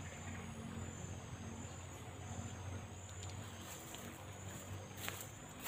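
Insects calling in the riverside vegetation: a faint, high-pitched chirring in short, evenly repeating pulses. A few sharp clicks come near the end.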